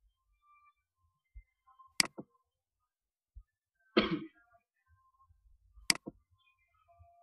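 Computer mouse clicking: a pair of sharp clicks about 2 seconds in and another pair about 6 seconds in. Between them, about 4 seconds in, a short cough.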